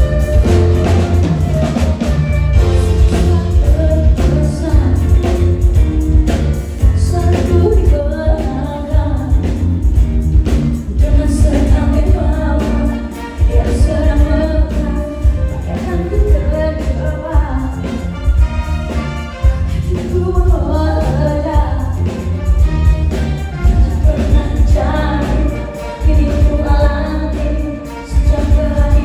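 Pop music: a singer over a band with heavy bass and a steady drum beat.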